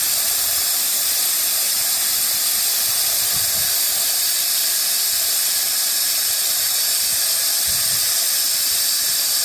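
Steady hiss of propane flowing from a 20 lb tank through a refill adapter into a 1 lb disposable propane cylinder.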